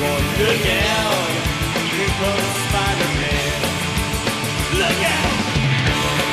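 Fast punk-style rock music with a driving, steady drum beat.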